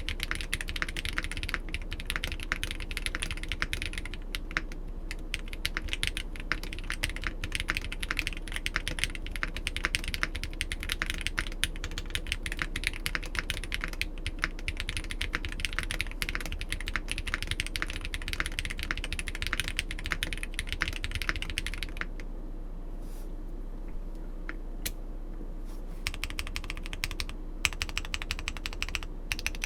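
Steady fast typing on an RE65 gasket-mount mechanical keyboard with lubed Holy Panda tactile switches on a brass plate. About three-quarters of the way through the typing breaks off for a few seconds, leaving only a few single keystrokes, then resumes.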